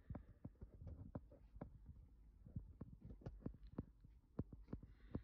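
Faint handling noise from a handheld phone being carried: irregular soft clicks and knocks, several a second, over a low rumble.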